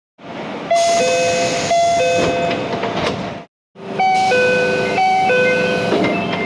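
Train door chime inside a Keio commuter railcar: a two-note high-then-low chime played twice, then after a short cut a second car's chime, a little higher on its first note, again played twice, over the hum and rumble of the car interior.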